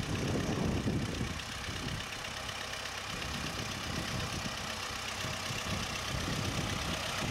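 Four-cylinder engine of a 1927 Model T Ford homemade tractor running steadily under load as it pulls a walking plow through the soil, a little louder in the first second.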